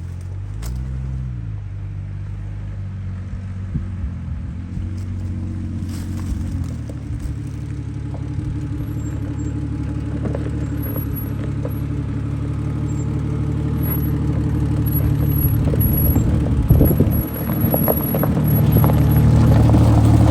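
Lifted Jeep's engine running, its pitch rising and falling briefly about a second in, then getting louder and rougher from about six seconds in, with scattered knocks and rattles, as the Jeep drives.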